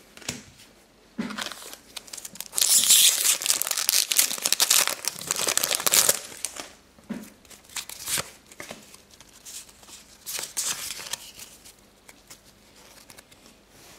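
Foil booster pack wrapper being torn open and crinkled, loud for about four seconds starting a couple of seconds in, then softer intermittent rustling as the wrapper and cards are handled.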